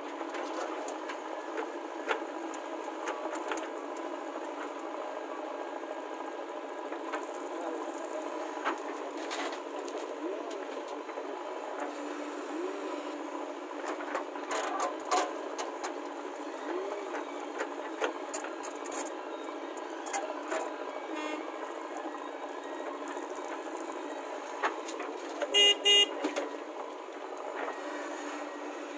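Diesel engine of a JCB 3DX backhoe loader running steadily under load as its backhoe digs, with scattered sharp knocks. Near the end a vehicle horn gives two short loud toots.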